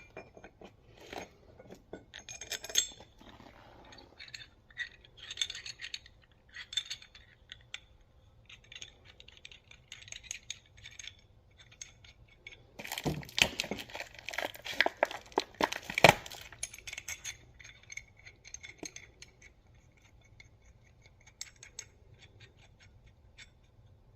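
Small steel parts clinking, tapping and scraping as new ARP connecting-rod bolts are handled and fitted into a rod, with a denser, louder run of sharp clinks a little past halfway.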